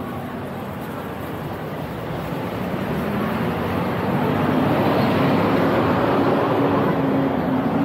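Street traffic: a large vehicle passing close by, a steady engine or motor hum and road noise growing louder to a peak about two-thirds of the way through.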